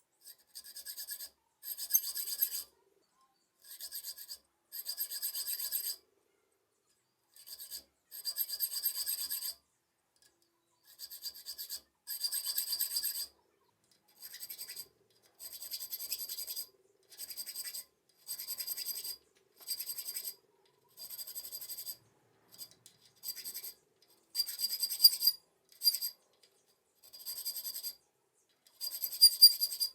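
Hand file scraping back and forth across a metal folding-knife part in repeated strokes, about nineteen of them, each up to a second and a half long, with short pauses between.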